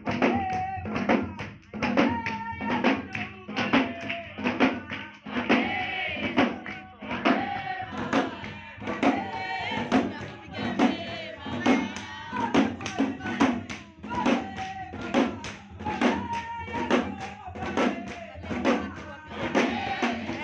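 Group singing a gospel song over a steady percussive beat of about two strikes a second.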